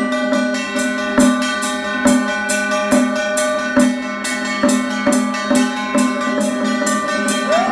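Taiwanese temple ritual music played live by a small ensemble. A drum strikes a steady beat a little under once a second over sustained ringing tones.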